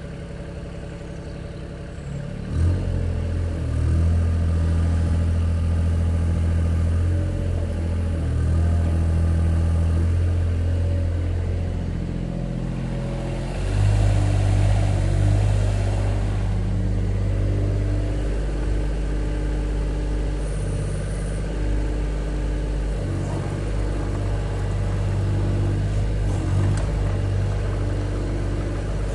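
Kobelco mini excavator's diesel engine running steadily. Its note steps up and gets louder about two and a half seconds in, then shifts a couple more times.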